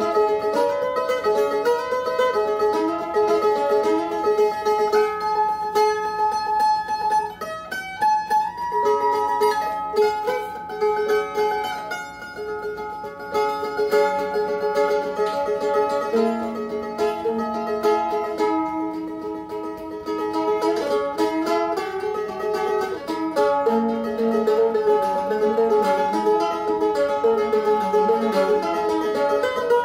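Solo mandolin improvising, a steady run of picked melody notes with some held, ringing notes.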